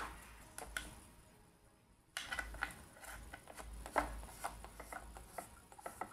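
Screwdriver working the screw that holds the metal bottom plate on a Singer 401a sewing machine: irregular small metal clicks and scraping, with the sharpest click about four seconds in.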